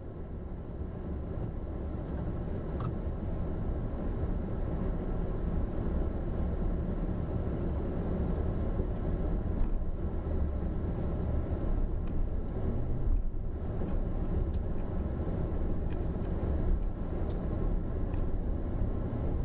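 Low, steady rumble of a car's engine and road noise, picked up inside the car by a dashcam microphone, with a few faint ticks.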